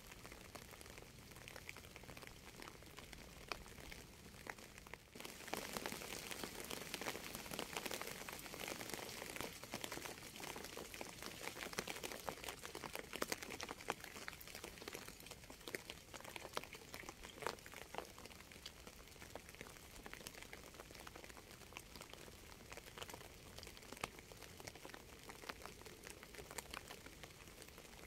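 Rain falling, a dense spatter of countless small drops that grows heavier about five seconds in and stays steady.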